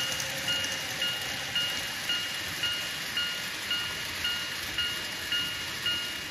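Railway level-crossing alarm on a model railway layout: a single electronic ding repeating evenly about twice a second.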